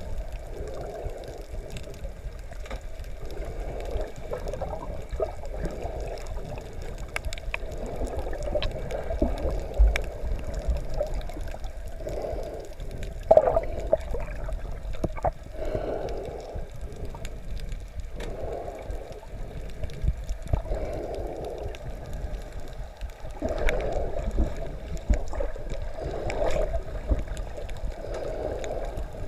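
Muffled underwater sound picked up by a GoPro in its housing while snorkeling: water sloshing and gurgling in swells every two to three seconds, with scattered small clicks and knocks.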